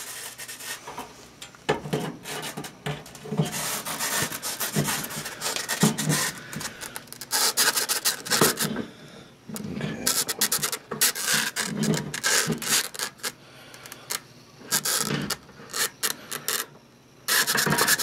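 Irregular rubbing and scraping in short bursts with brief lulls: handling noise from feeding an inspection camera's cable into a furnace heat exchanger.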